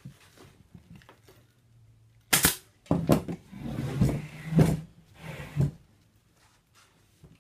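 Pneumatic upholstery staple gun firing several staples, each a sharp shot, into the chair frame through padding batting. Between the shots the batting rustles and the chair is shifted.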